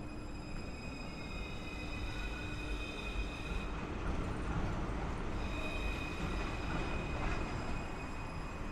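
Melbourne tram running along the street with a high steady whine. The whine drops out for a second or two midway and then returns, over a steady low street rumble.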